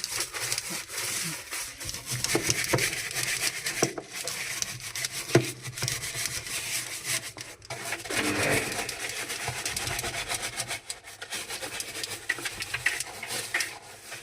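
A brush scrubbing a washing machine part coated in cleaning chemical: irregular rubbing and scraping strokes, with one sharp knock about five seconds in.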